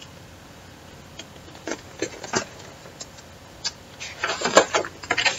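Pages of a large picture book being handled and turned: a few light paper taps, then a burst of rustling and flapping paper about four seconds in.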